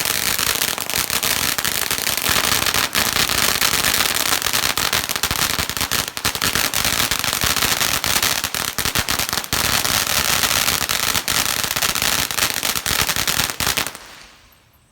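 Ground fountain firework spraying sparks: a steady loud hiss thick with crackling pops, which dies away about fourteen seconds in as the fountain burns out.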